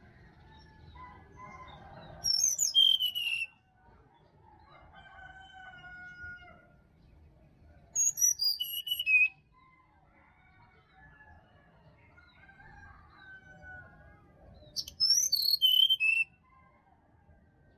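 Brown-chested jungle flycatcher singing three short phrases several seconds apart, each a quick run of high whistled notes falling in pitch. Fainter, drawn-out, lower bird calls carry on between the phrases.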